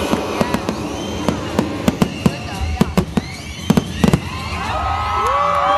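Aerial fireworks bursting: a rapid run of sharp cracks and pops over a low rumble through the first four seconds. Near the end a voice on the show's loudspeaker soundtrack comes up with long held, bending notes.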